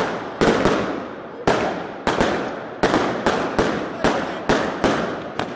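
Fireworks going off: an irregular run of sharp bangs, about two or three a second, each fading out quickly.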